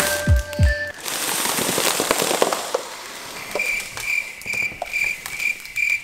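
Foil crinkling and crackling as a foil balloon and foil tinsel are handled, after a few beats of music that stop about a second in. For the last few seconds a high beeping tone repeats about three times a second.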